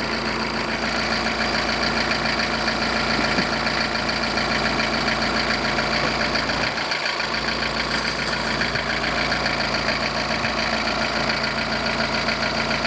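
Camper van engine idling steadily, running on a freshly fitted timing belt.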